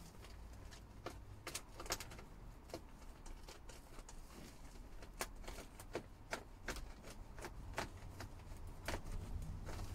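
Irregular sharp clicks and light taps, about two dozen, from hands working foil-faced insulation against the timber ceiling frame above the cab. A low steady rumble sits underneath.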